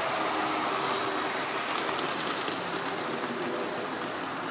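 Model train running past on the track: a steady rolling rumble of wheels on the rails and the locomotive's motor, with a thin high whine coming and going from about two seconds in.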